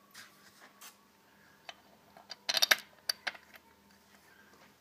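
Light metallic clicks of steel cylinder bolts being handled and set into the bolt holes of a two-stroke jet-ski engine's cylinder block: a few scattered clicks, a quick rattle of several clicks about two and a half seconds in, then a couple more.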